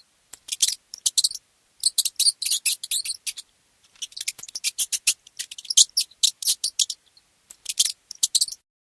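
Mouse squeaking in rapid runs of short, high-pitched chirps, with a couple of brief pauses.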